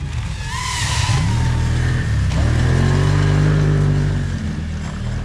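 Snowmobile engine revving up and easing off as the machine rides and turns on snow, its pitch rising then falling and loudest past the middle. About a second in, a higher whine drops in pitch as the FPV drone flies past.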